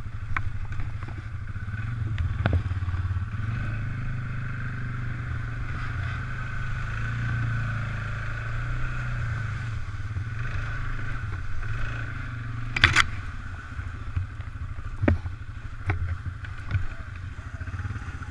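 Suzuki ATV's single-cylinder four-stroke engine running steadily at low throttle, with short knocks and clatter from the quad jolting over the rough trail. The loudest is a sharp knock about two-thirds of the way through, followed by a few lighter ones.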